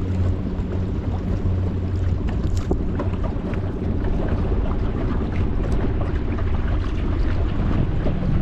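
A boat's engine running with a steady low hum, along with wind buffeting the microphone and water splashing against the hull.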